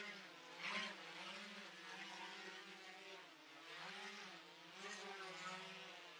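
GoPro Karma quadcopter's four electric motors and propellers humming in flight, the pitch of the whine drifting up and down as the throttle changes. A short louder rush of noise comes about a second in.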